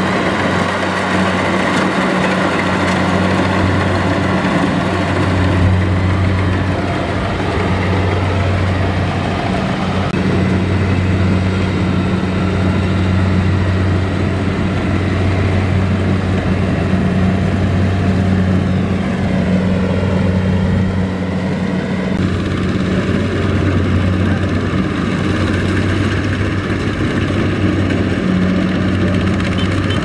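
Kubota combine harvester's diesel engine running steadily with a low hum. Its sound changes about two-thirds of the way through.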